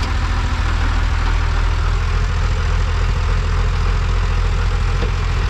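Old farm tractor's engine running steadily at an even, low drone.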